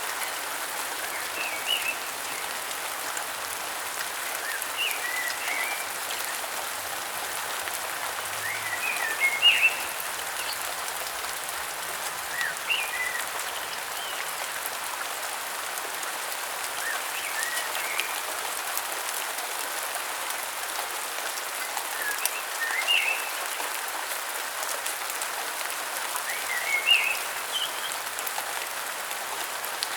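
Steady rain falling, with a bird calling in short chirps every few seconds.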